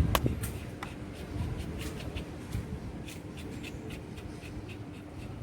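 Metal engine parts being handled during a motorcycle timing-gear refit: a sharp metallic clink just after the start, then a run of light clicks and rubbing.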